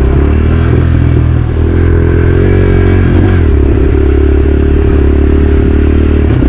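Dirt bike engine running under throttle as the bike is ridden through thick, loose trail dirt. The engine pitch dips and rises slightly partway through.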